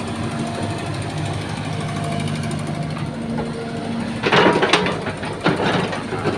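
Excavator's diesel engine running steadily, with a cluster of loud metallic clanks and scrapes about four seconds in and a few more near the end.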